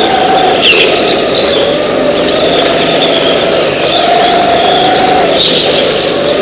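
Go-kart engine running at high revs, its pitch dropping briefly twice as the kart slows for corners, with a short screech of tyres at each dip.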